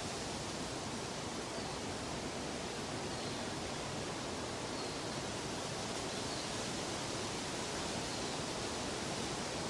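Steady rushing water, like a stream or waterfall, with an even, unbroken hiss. A few faint, brief high chirps come through every second or two.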